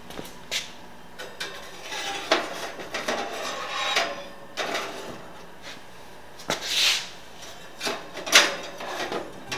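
Steel blacksmith tongs and a forged steel knife blade clinking and scraping against the wire rack and metal interior of a toaster oven as the blade is set inside, a series of irregular metallic clinks, some briefly ringing.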